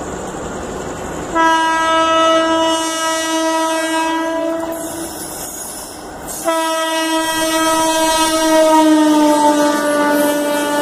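Indian Railways WAP-4 electric locomotive's horn sounded in two long blasts as the locomotive approaches at speed. The second blast drops slightly in pitch as it passes, over the rumble and clickety-clack of the train's wheels.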